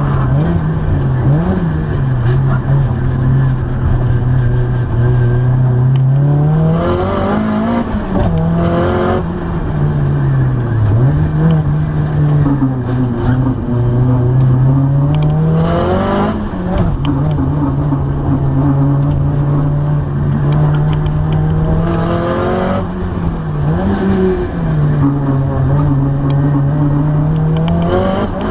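Car engine running under load with a steady drone. Several times the pitch climbs sharply, and each climb ends in a short hissing burst. The owner recorded it to check for an abnormal noise.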